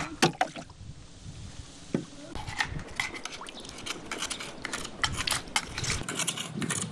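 A cleaver blade scraping and clicking against the shell of a freshwater mussel. A rapid, irregular run of scrapes and clicks starts about two seconds in and keeps going.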